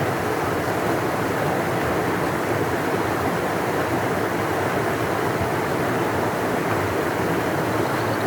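Large river rushing steadily, a deep, even roar of flowing water.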